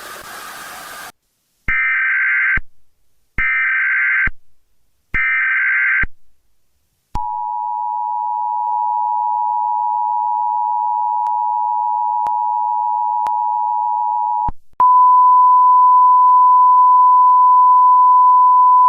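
Emergency Alert System tones: a brief burst of static, then three short bursts of warbling digital data tones (the EAS header), then the two-tone EAS attention signal held steady for about seven seconds. At about 15 seconds in, it cuts to a single louder steady tone.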